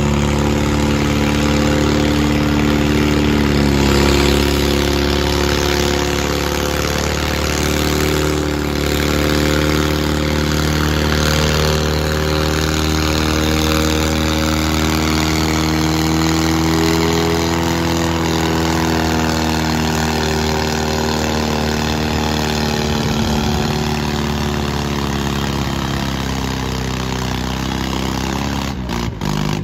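Farmall M tractor's four-cylinder engine running hard under load as it drags a weight-transfer pulling sled. It is loud and steady, its pitch wavering and sagging slowly in the later part of the pull as the load builds.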